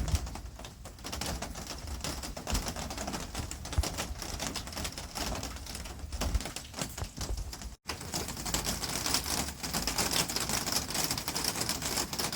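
Rain pattering steadily on the gazebo's cover overhead: a dense, fast run of small drop impacts. The sound drops out for an instant about eight seconds in, then the same patter resumes.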